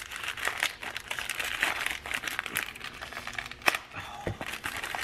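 Plastic shipping bag crinkling and rustling as it is handled and pulled open by hand, with one sharp click a little over three and a half seconds in.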